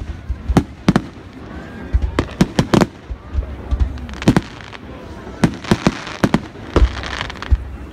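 Aerial firework shells bursting, an irregular series of sharp bangs. Some come in quick clusters, a few close together about 2.5 s in and again around 5.5 to 6.5 s.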